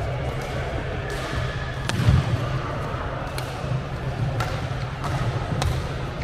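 Badminton rally: several sharp cracks of rackets striking a shuttlecock, about one a second, over a steady low hall hum. A low thump about two seconds in is the loudest moment.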